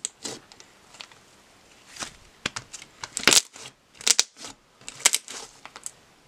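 Thick, air-inflated slime being squeezed, stretched and pressed by hand, giving off irregular clusters of sharp crackles and pops as its trapped air squishes out.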